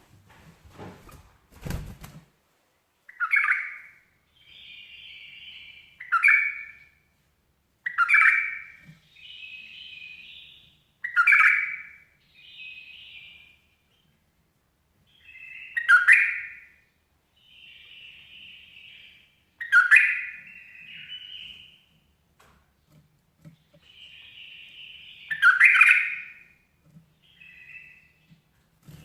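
A bulbul calling over and over: a loud sharp note, then a scratchy chatter, repeated about seven times at intervals of two to four seconds. A brief clatter sounds at the very start.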